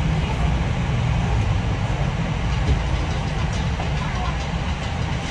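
MAN ND323F bus heard from inside the cabin while under way: a steady low drone of the engine and driveline, with road rumble.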